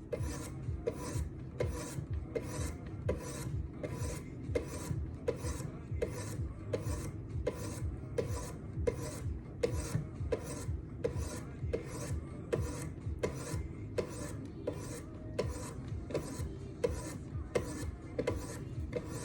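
400-grit sharpening stones of a Wicked Edge guided knife sharpener rasping along a knife edge in steady, even strokes, a little under two a second, refining the bevel.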